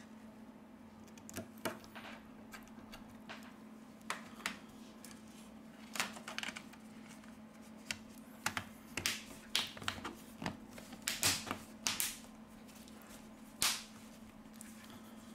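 Irregular small clicks and taps of plastic and metal smartphone parts and tools being handled and fitted back together while reassembling a Xiaomi Redmi 9C, with a quicker run of clicks about two-thirds of the way through. A faint steady hum sits underneath.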